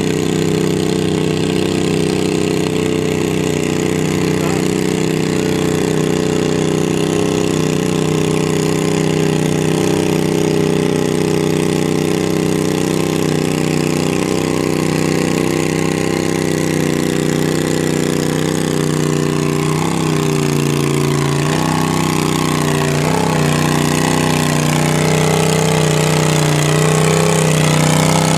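Cub Cadet 582 garden tractor's V-twin engine running hard at steady high revs while pulling a weight-transfer sled. About twenty seconds in, the revs start to dip and waver repeatedly as the sled's load builds.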